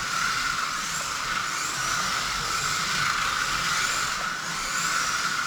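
Kyosho Mini-Z RC cars running on the track: a steady high drivetrain whine with the electric motors' pitch rising and falling about once a second as the throttle is worked, over tyre noise.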